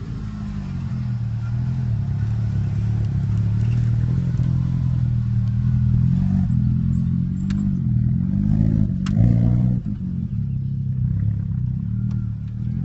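Suzuki Samurai off-roader's engine working hard through mud, revving up and down again and again as the throttle is blipped.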